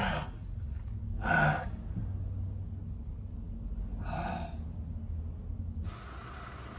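A man gasping and breathing heavily, three audible breaths a second or two apart, over a low steady hum.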